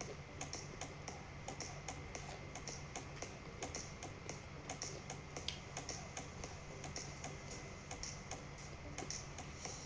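Close-up chewing of crispy deep-fried food, here battered squid rings: a steady run of crunching clicks, about two to three a second.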